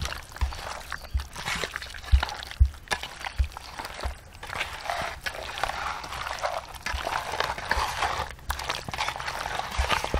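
Raw chicken pieces being mixed by hand in a yogurt, ginger-garlic and lemon-juice marinade in a metal bowl: an irregular wet mixing noise with many soft low thumps as the pieces are turned over.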